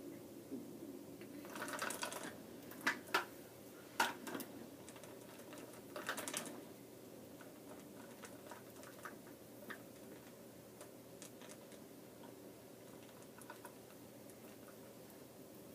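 Plastic clicking and clacking from an orange toy train track, with a few sharp clacks in the first seven seconds and faint scattered ticks after, over a steady low hum.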